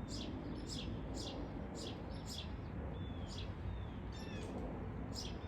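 Sparrow chirping repeatedly: short, high, falling chirps about two a second, pausing briefly about halfway through while a few other short notes sound, then picking up again.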